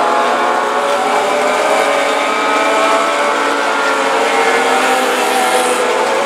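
A pack of mini late model dirt-track race cars running at speed around the oval, several engine notes overlapping and drifting slowly in pitch, steady and loud.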